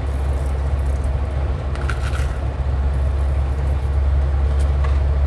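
Steady low kitchen hum, with a few faint light taps from the plastic tub as dry wakame is shaken out of it into the pan.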